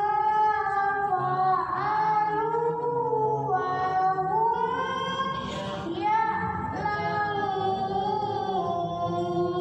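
Melodic Quran recitation (tilawah): a single high voice chanting Arabic in long held notes that waver and glide between pitches, with brief breaths about one and a half, three and a half and six seconds in.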